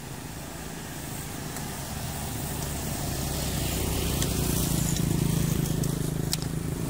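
A motor vehicle engine running as a steady low hum. It grows louder over the first five seconds, then eases slightly.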